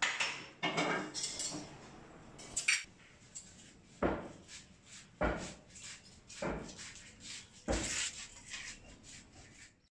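Knocks and clinks of kitchenware being handled: a few irregular clatters at first, then four knocks at a steady pace about a second apart.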